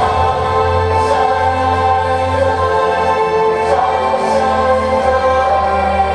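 Music with a choir singing long held chords over a steady deep bass note, the chord shifting a few times.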